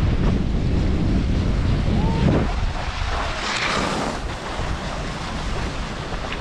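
Wind buffeting the microphone of a camera carried by a moving skier, with skis hissing over groomed snow. The heavy rumble eases about two and a half seconds in, and a brief, louder hiss comes a little past the middle.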